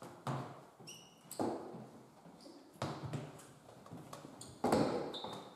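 Four heavy thuds of a competitor landing on ninja-course obstacles, a second or more apart, each with an echoing tail, with a few brief high squeaks between them.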